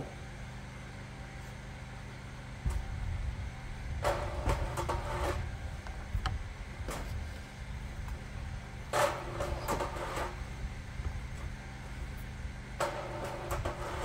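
Small handheld electric grinder sharpening a sawmill bandsaw blade: the grinding wheel bites the teeth in three bursts of grinding, each about a second long, about four seconds in, about nine seconds in and near the end.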